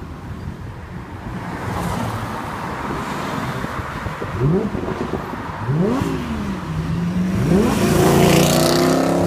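Lamborghini Huracán's V10 engine revving in several short rising bursts, then a longer, louder run at high revs near the end.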